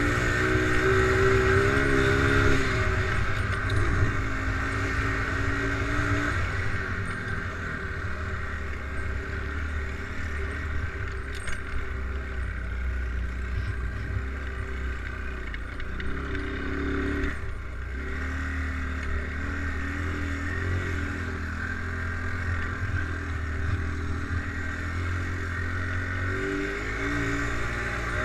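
ATV engine running under way, its pitch rising and falling with the throttle: revving higher for the first few seconds, then settling into steadier running with a brief dip in the middle.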